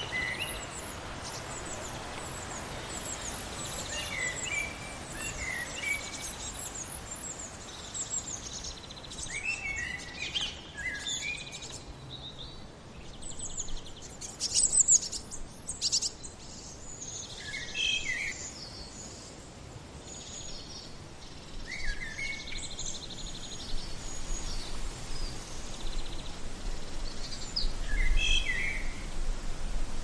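Several wild birds calling in woodland: short chirps and high, thin repeated notes coming and going over a steady faint outdoor background. A low rumble comes in near the end.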